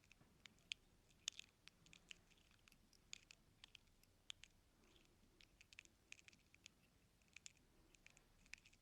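Faint, irregular small clicks and scratches of an ear-cleaning tool working inside the ear canal, picked up close to the ear.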